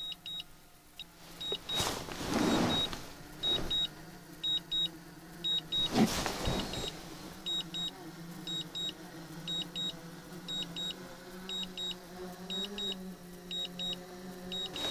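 Short high electronic beeps in pairs and threes, repeating every second or so, from the DJI drone's remote controller and app, over a steady low hum that lifts slightly in pitch near the end. A few brief rushing noises come about two and six seconds in.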